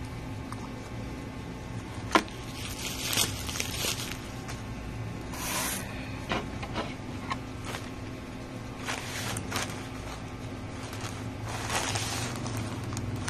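A plastic mailer bag and a small cardboard box being handled on a table: short spells of plastic rustling and crinkling, with one sharp knock about two seconds in, over a steady low hum.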